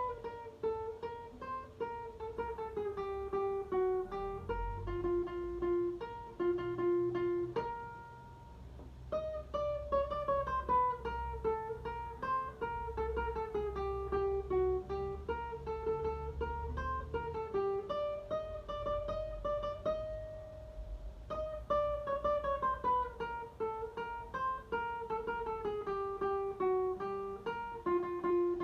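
Guitar playing the well-known circus clown tune as a single-note melody, built from stepwise descending runs and repeated phrases, with short breaks between phrases.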